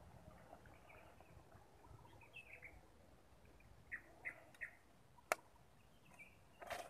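Faint bird chirps: a few short calls in the middle, three close together around four seconds in, over a near-silent background. A single sharp click a little after five seconds in is the loudest sound, and a brief noisy burst follows near the end.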